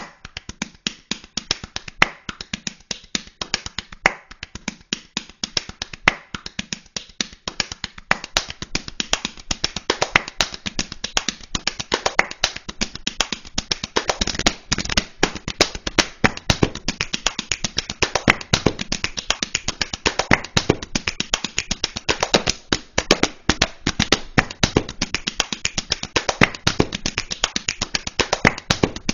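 Hands slapping a bare belly and chest like a drum, a run of quick fleshy slaps in rhythm. The slaps start sparse and grow much denser after a few seconds as more players join in.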